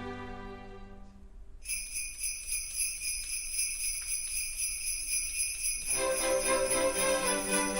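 Jingle bells shaken in a steady rhythm start about two seconds in, after the last sustained notes of a bowed-string piece fade away. Near the end, other instruments or voices join with pitched notes over the bells.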